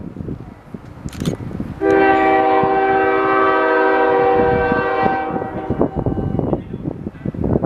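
Approaching CSX diesel locomotive's air horn sounding one long blast of about three seconds, a chord of several tones, over gusty wind noise on the microphone.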